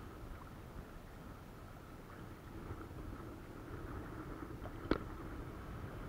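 Faint low rumble with a distant motor's steady hum, and one sharp knock about five seconds in.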